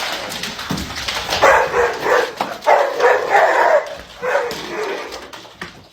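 A dog vocalising, with about three drawn-out, wavering calls in a row.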